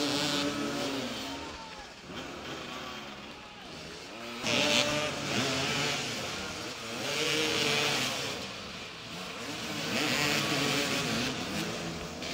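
Several motoball motorcycles revving and accelerating over a wet court, their engine pitch rising and falling repeatedly, with three swells of hiss along the way.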